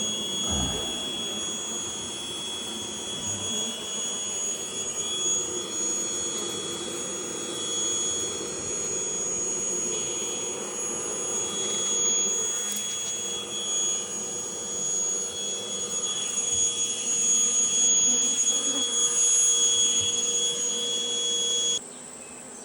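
A bee vacuum (shop-vac type) runs steadily with a high motor whine as live honeybees are sucked up off the comb. It is switched off and cuts out suddenly near the end, leaving the buzz of the bees.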